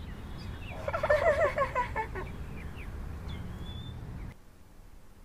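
Outdoor nature ambience with small birds chirping and a steady low background bed. About a second in, a loud burst of a rapid, warbling call, like a gobble, lasts about a second. The ambience drops away sharply near the end.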